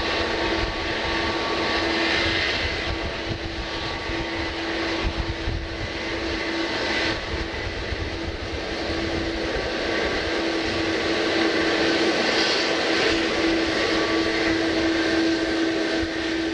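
Jet airliner engines running steadily, a steady hum and higher whines over a broad rush, dipping slightly a few seconds in and swelling again later.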